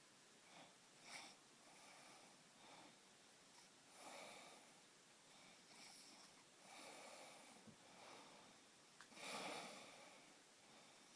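A sleeping person snoring faintly, a string of noisy breaths at irregular intervals, the loudest about nine seconds in.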